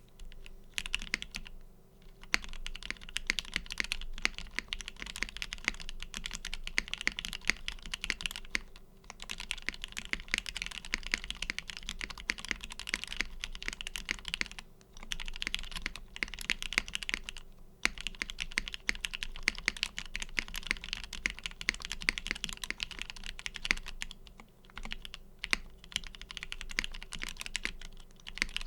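Fast typing on a Duck Unicorn x Legend custom mechanical keyboard with lubed Gateron Ink switches on an FR4 plate and JTK Red Riot keycaps: a continuous clatter of keystrokes. It breaks off in brief pauses about 2, 9, 15, 18 and 24 seconds in.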